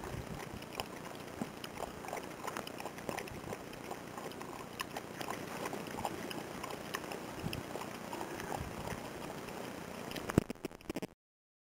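Shiba Inu lapping water from a small metal camp cup: a steady run of quick, wet laps and clicks that cuts off abruptly just before the end.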